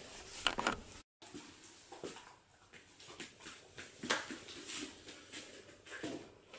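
A Schapendoes dog moving about and sniffing at scent tins on the floor while searching for the target odour: faint scattered soft taps and short sniffs.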